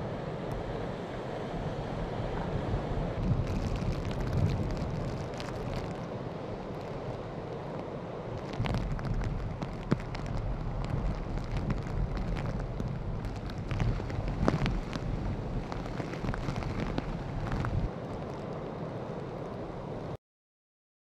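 Typhoon-force wind gusting hard on the microphone over the roar of storm surf breaking on a breakwater, with frequent crackling buffets. The sound cuts off suddenly near the end.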